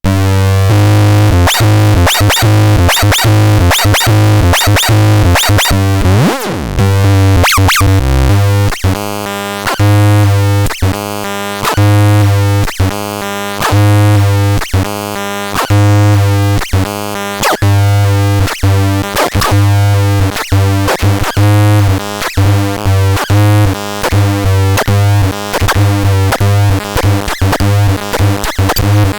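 Electronic synthesizer keyboard playing a busy run of short, sharply struck notes over a steady low bass tone, with a pitch sweep about six seconds in.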